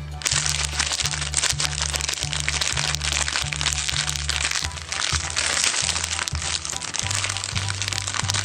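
Wrapping paper crinkling and crackling steadily as it is unwrapped from a small mystery toy, over background music with a steady bass line.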